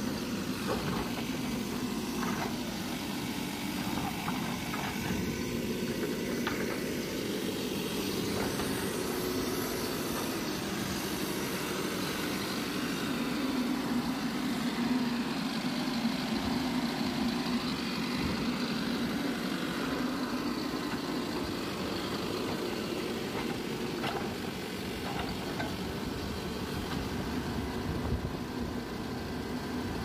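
Mahindra EarthMaster VX backhoe loader's diesel engine running steadily as the machine digs, a little louder about midway, with a few faint knocks.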